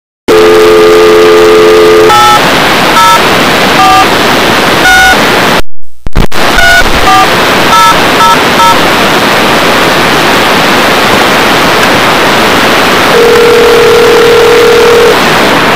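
Telephone line recorded on tape: a dial tone for about two seconds, then touch-tone dialing, about four digits, a brief dropout, and about five more digits. Loud line hiss runs under it, and near the end one ring of the ringback tone sounds for about two seconds as the call goes through.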